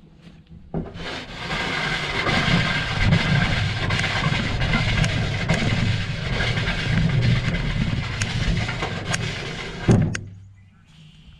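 Wheelbarrow being pushed across a grass lawn: a steady rolling rumble and rattle, heard through a camera mounted on the barrow. It starts about a second in and ends with a thump as the barrow is set down near the end.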